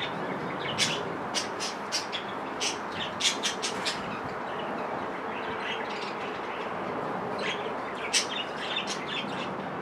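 Small garden birds chirping and singing in quick clusters of short, high calls, over a steady background rush of outdoor noise.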